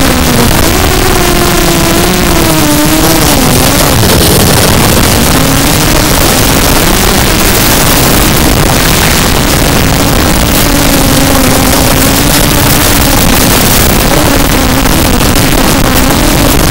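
Zabo 250 quadcopter's motors and 5x4 carbon fibre propellers buzzing, the pitch wavering up and down with the throttle, under a loud, steady hiss.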